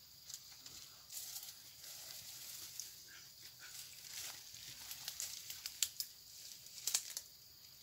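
Light rustling and crinkling of dry leaf litter and a bag being handled, with scattered sharp crackles, a few louder ones toward the end.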